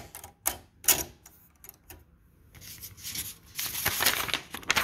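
Vintage mechanical check writer being worked by hand: several sharp separate clicks as its amount levers are slid into place, then a denser run of mechanical clicking and rattling in the second half.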